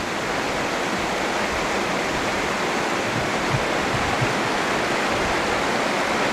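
River current running over rocks, a steady rushing wash of water.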